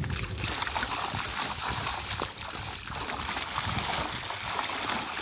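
Water splashing and trickling as a fishing net is dragged through shallow river water and lifted, draining through the mesh.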